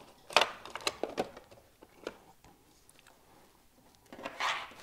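A few sharp plastic clicks and knocks as the battery hatch of a 1:14-style RC truck model is latched shut and the model handled, mostly in the first second and a half. Near the end comes a short clatter as a small screwdriver is laid on the table.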